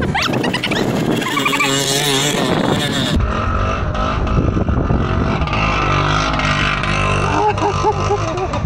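A person's voice over the first few seconds, then a Vespa scooter engine running steadily as the scooter rides along a rough dirt track.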